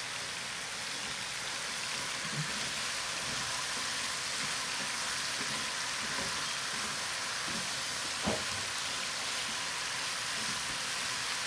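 Chicken pieces sizzling in hot oil in a pan as they roast with onion and spices: a steady crackling hiss. A single sharp knock about 8 seconds in.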